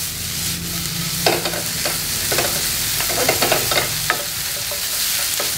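Beef strips stir-frying in hot oil in a nonstick frying pan: a steady sizzle, with a wooden spoon knocking and scraping against the pan every second or so.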